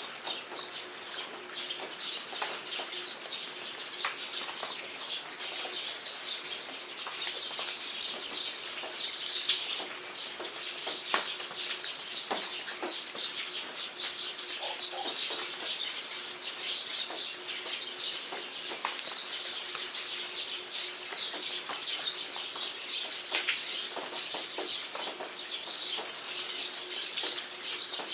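Rain falling with many birds chirping and twittering continuously, scattered drops ticking over the birdsong, and a faint steady low hum underneath.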